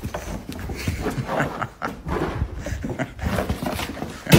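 A dog growling and scrambling as it snatches at a cardboard cookie box held out to it, with the box rattling and scuffing.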